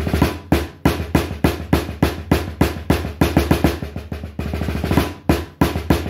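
Snare drum played with wooden sticks: a rudimental solo passage of plain rhythms, loud accented strokes among quick, softer groups of notes.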